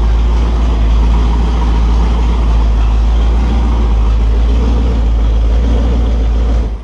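Freshly built Holden 355 stroker V8, with a Sig Erson TQ30 cam and Edelbrock carburettor, running steadily on an engine test stand during its bench test and sounding healthy. It is switched off near the end and cuts out suddenly.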